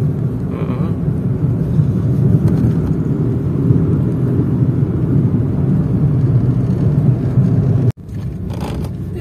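Car driving along a road, heard from inside the cabin: a steady low rumble of engine and road noise. It cuts out abruptly about eight seconds in, then carries on quieter.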